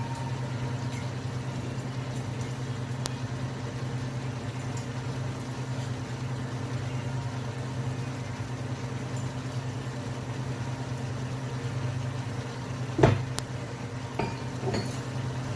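Steady low hum while a pot of vegetables and water cooks on the stove. About thirteen seconds in there is one loud sharp knock, followed by a few lighter taps.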